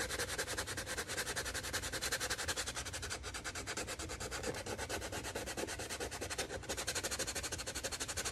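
180-grit sandpaper rubbed by hand over a styrene plastic model part in quick, even back-and-forth strokes, pausing briefly twice, smoothing the rough spots left by grinding.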